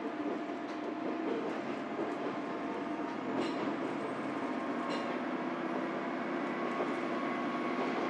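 Diesel railcar running along the track, heard from inside the carriage: a steady rumble with a constant engine hum and two sharp wheel clicks over the rails, about three and a half and five seconds in.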